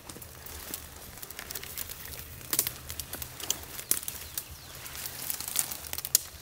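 Footsteps pushing through dense brush: irregular crackling and snapping of leaves, twigs and vegetation brushing against clothing, with a faint low hum underneath.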